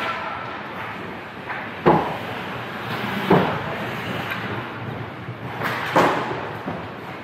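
Ice hockey play: three sharp, echoing knocks of puck and sticks, about two seconds in, after three and a half seconds and at six seconds, over a steady background hiss.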